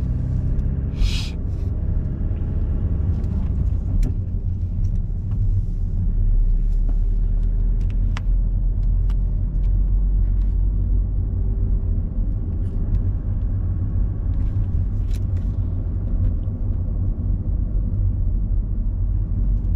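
Car driving along, heard from inside the cabin: a steady low rumble of engine and road noise, with a few light clicks.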